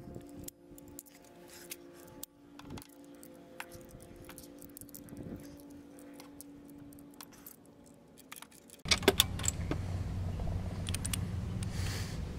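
Metal hand tools clinking: vice grips and a steel spark plug wrench worked to loosen and lift out a spark plug. Faint background music and small clicks at first, then about nine seconds in louder metallic clinks and jangling over a steady low noise.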